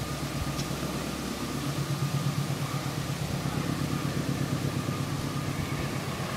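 A distant engine running steadily, a low hum with a faint higher whine, slowly growing louder.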